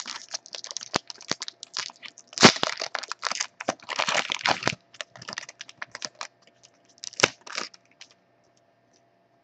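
Foil wrapper of a 2012 SP Authentic football card pack crinkling and tearing as it is opened, a run of quick crackles that stops about eight seconds in.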